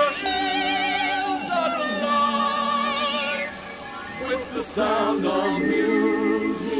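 Music with a singing voice holding long notes with a wide vibrato, one sustained note after another.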